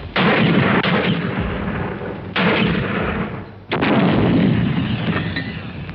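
Artillery field gun firing three times in about four seconds, each shot a sudden loud blast that dies away slowly over a second or two.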